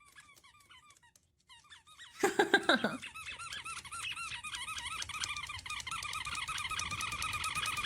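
A squeaky toy squeaking rapidly over and over, faint at first and louder from about two seconds in. About two seconds in there is also a brief loud cry that falls in pitch.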